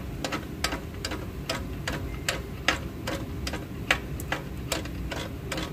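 Drum-brake star-wheel adjuster on an Isuzu 4HG1 truck's front brake being turned notch by notch with a brake adjusting tool, giving sharp, evenly spaced clicks about two and a half times a second as the shoes are wound out toward the drum.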